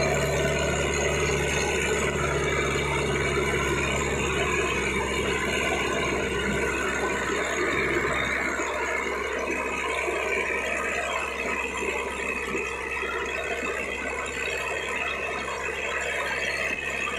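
Sonalika DI-750 III tractor's diesel engine working hard under load, pulling a double disc harrow through loose soil, with the noise of the harrow being dragged along. The engine's low hum fades somewhat about halfway through.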